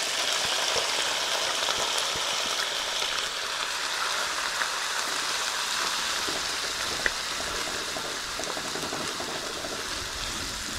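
Shredded pork frying in hot lard in a frying pan, freshly added to the hot fat for browning: a steady sizzle that eases slightly, stirred with a wooden spoon, with a couple of sharp clicks.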